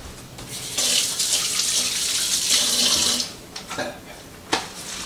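Kitchen sink faucet running for about two and a half seconds as hands are washed under it, followed by a few light knocks and a sharp click near the end.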